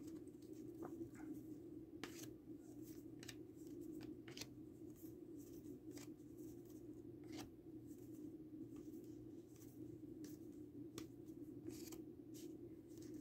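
Faint, irregular flicks and soft clicks of a stack of trading cards being sorted by hand, over a low steady hum.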